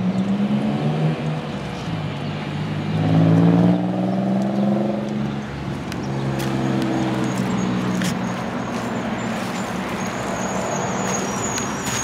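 Road traffic: a motor vehicle's engine passing, loudest about three to four seconds in, its pitch falling as it goes by, then a steady engine hum from further traffic.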